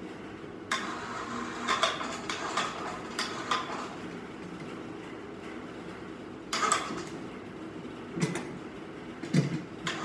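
Metal rattling and clanking in irregular bursts as the electric hoist's trolley rolls along the steel arm of a jib crane for loading beehives, over a steady low hum.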